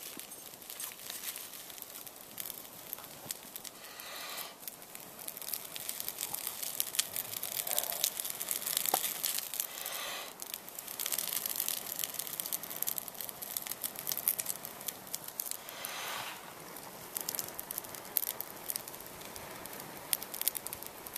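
Blowing into a handheld bundle of dry grass and oak leaves around a char cloth ember, to coax it into flame. There are a few long hissing blows, and the dry tinder crackles and crinkles through much of it, most densely in the middle.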